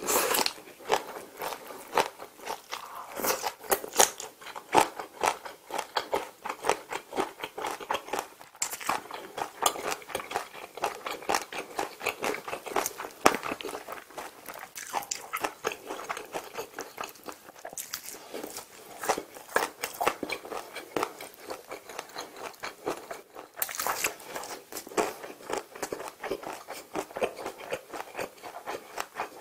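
Close-miked chewing of sauce-coated fried chicken and green-onion kimchi: a dense, irregular run of short wet mouth clicks and crunches.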